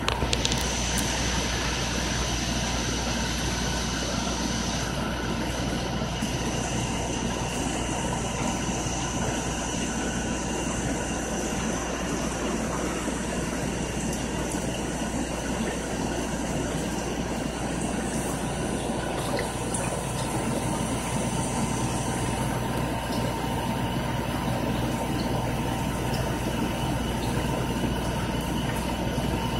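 Steady hum of aquarium pumps and filters with running water, a constant mechanical drone with a few thin steady tones.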